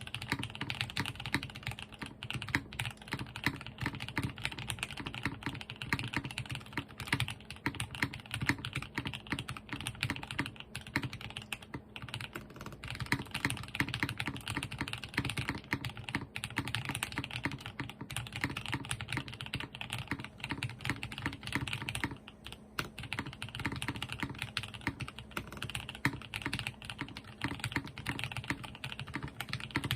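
Cheap60 60% mechanical keyboard being typed on steadily, its Krytox-lubed C3 Tangerine linear switches and Domikey keycaps giving quick, irregular keystroke clacks, without foam or tape mods. The typing eases off briefly a little past the middle.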